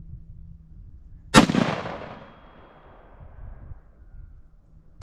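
.308 rifle shot about a second and a half in, its report trailing off in a long echo over about a second. A second shot cracks right at the end.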